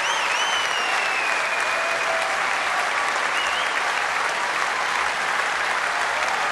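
Large concert-hall audience applauding steadily, with whistles from the crowd near the start and again briefly about three and a half seconds in.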